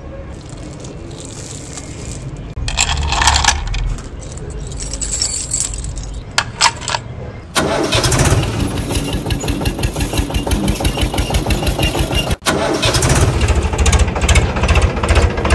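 Diesel tractor engine: a low rumble at first, then about halfway a loud engine comes in suddenly and runs with a fast, even chug, broken off for a moment near the end before carrying on.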